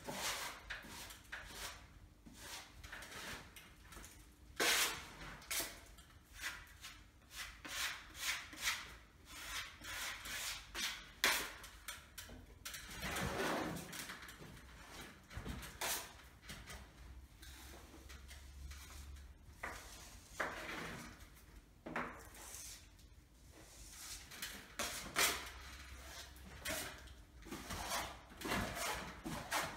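Broad steel filling knife scraping and swishing across a plaster wall as it spreads and smooths a skim coat of filler, in repeated irregular strokes, a few of them louder.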